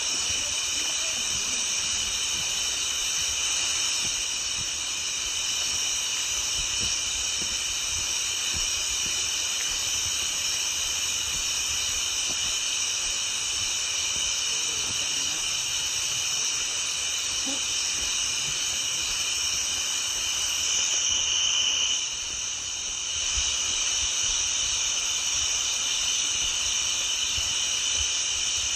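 A steady, high-pitched chorus of calling frogs that dips briefly about three-quarters of the way through, over low thumps of footsteps on the trail.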